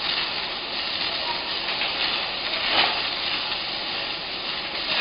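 Steady hiss of a gas welding torch flame heating rebar for gas pressure welding, with one brief louder surge about three seconds in.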